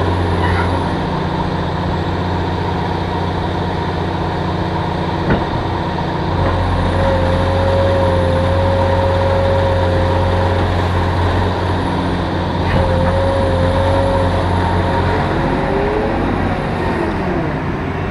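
Caterpillar 336E excavator's six-cylinder C9.3 diesel running under hydraulic load as the bucket and boom are worked and the upper structure swings. A steady engine hum grows a little louder about six seconds in, a whine comes and goes twice in the middle, and sweeping tones come near the end.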